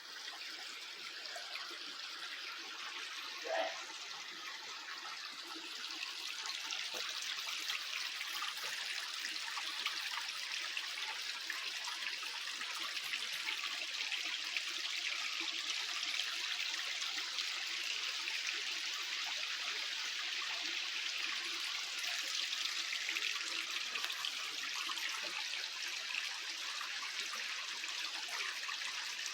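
Mountain stream water running steadily over rocks, a continuous trickling noise that grows a little louder about six seconds in. A brief pitched sound stands out about three and a half seconds in.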